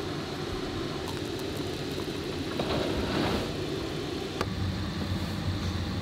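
Hot water poured from a gooseneck kettle into a mug over a tea bag, a soft splashing trickle swelling in the middle, over a steady low hum; a single sharp click follows a little later.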